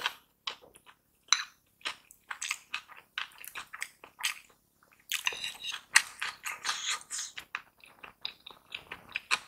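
Close-miked chewing of a mouthful of rice and vegetables: many short wet mouth sounds in quick succession, with a brief pause about halfway through before the chewing resumes more densely.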